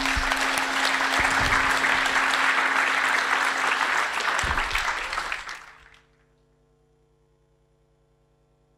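Audience applauding, dying away about six seconds in. After that there is near silence with a faint steady hum.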